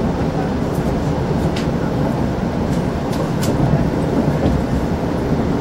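Steady low rumble of a moving vehicle heard from inside, with a few brief sharp ticks about a second and a half in and again about three and a half seconds in.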